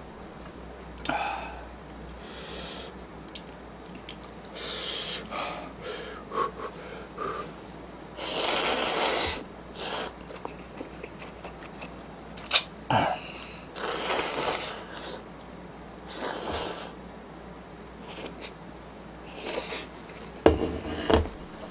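A person slurping thick instant ramen noodles several times, in noisy slurps up to about a second and a half long, the longest about eight seconds in, with a few sharp clicks and smacks of eating between them.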